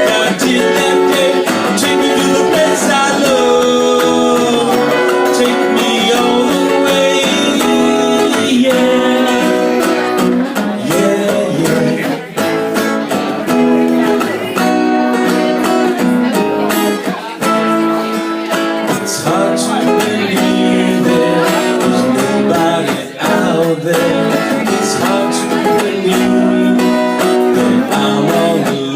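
Acoustic guitar strummed and picked, with a voice singing along at times.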